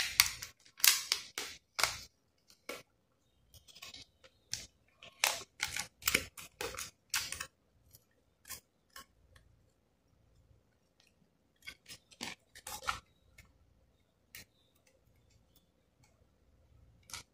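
Scattered small clicks and rattles of metal and plastic as a laptop hard-drive bracket and 2.5-inch SSD are handled and taken apart by hand, busiest in the first half with a few more clicks later.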